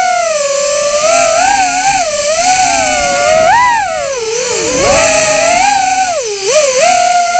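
Micro FPV quadcopter's motors and propellers whining, the pitch rising and falling continuously with throttle; the pitch dips sharply past halfway and again near the end.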